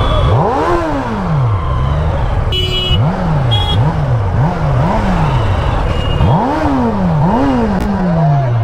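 Kawasaki Z900's inline-four on its stock exhaust revved in a series of throttle blips while barely rolling: one big rev near the start, a quick run of about four short blips in the middle, then two more big revs near the end. Two short horn beeps come about a second apart in the middle.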